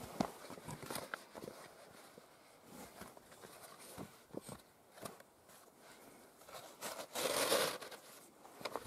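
Leather drawstring tinder pouch being handled: soft rustles and small clicks as its drawstring is pulled closed, with a louder rustle, under a second long, about seven seconds in as the pouch is pressed and rubbed against the sheepskin.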